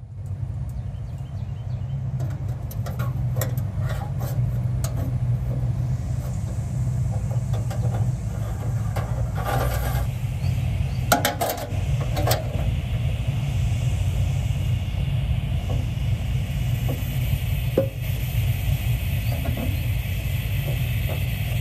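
A steady low engine-like drone, with scattered light clicks and knocks as bare copper ground wire is handled and worked into a metal meter base; the knocks are heaviest around the middle. A steady higher hiss comes in about two-thirds of the way through.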